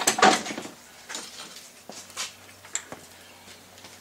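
Steel hand tools scraping and clinking against a welded part held in a bench vise while weld spatter is cleaned out of it. A short burst of scraping strokes comes at the start, then a few scattered light clicks.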